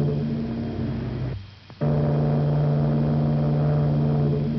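Steamship's whistle blowing long, steady low blasts, breaking off once about a second and a half in before sounding again.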